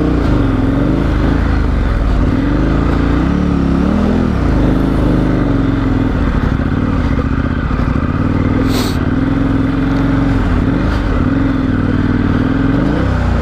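Adventure motorcycle engine running steadily under load as the bike ploughs through deep snow, its note dipping and recovering about four seconds in and again near the end. A single sharp click sounds about nine seconds in.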